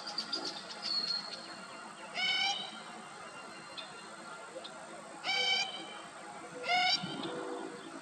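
Least grebe calling: three loud calls of about half a second each, a few seconds apart, with fainter short notes in the first second.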